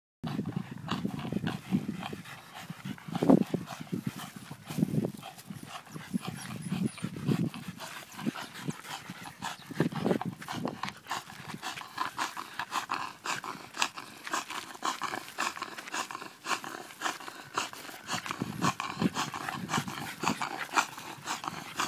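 French bulldog breathing hard and growling in short low bursts while gripping and pulling on a rope, with quick puffs of breath between.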